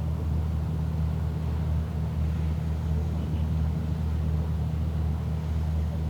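A steady low engine hum at constant speed.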